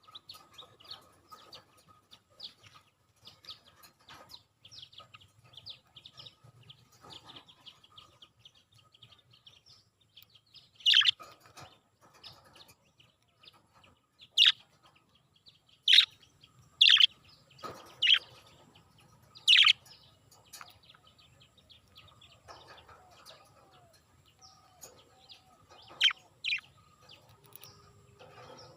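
Budgerigars chirping and chattering: a stream of soft, quick chirps, then from about a third of the way in a series of loud, sharp single calls a second or two apart.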